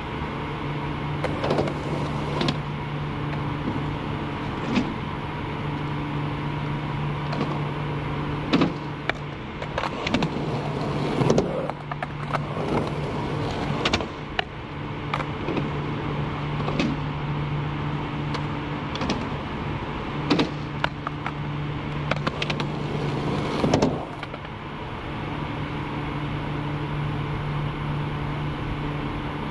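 Skateboard being ridden at a concrete skatepark during frontside noseslide attempts: wheels rolling, sharp clacks of the board popping and landing about a dozen times, and longer scraping stretches as the deck slides. A steady low machine hum runs underneath throughout.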